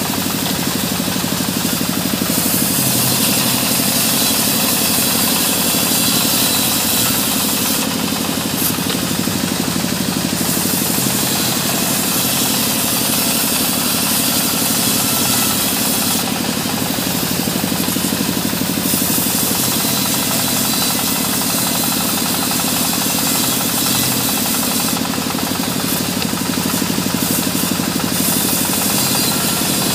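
Sawmill band saw running steadily and cutting through a log of waru (sea hibiscus) wood: a loud mechanical noise with a fast pulse underneath, brightening into a harsher hiss a few times.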